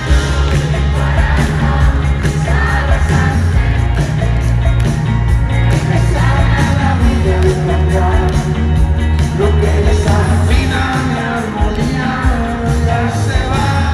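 Live rock band playing loudly, with electric guitars, a heavy low end and a voice singing over it.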